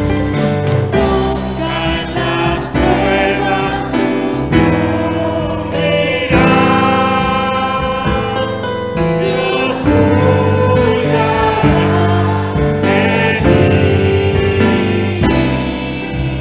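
A hymn sung by a group of voices, led by a woman at a microphone, accompanied by violin and a band of mandolins and guitars.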